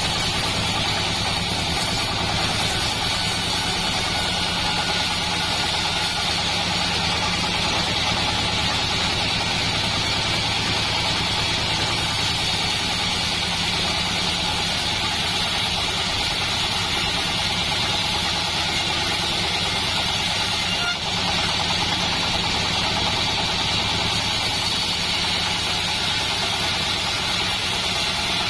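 Assembled bandsaw mill running steadily: a constant engine drone underneath a steady higher hiss.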